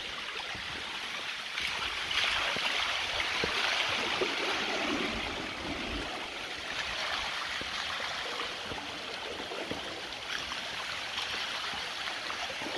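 Shallow water washing over the crest of a concrete dam, running down its sloping face and splashing into the stream channel below: a steady rushing splash that surges louder about two seconds in and eases off after about five. The flow comes from wind-driven waves topping the low dam; the water behind it barely reaches the crest.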